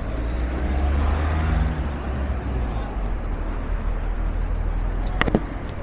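Street noise with the low rumble of a motor vehicle passing close by, swelling over the first two seconds and then fading. A short sharp sound comes about five seconds in.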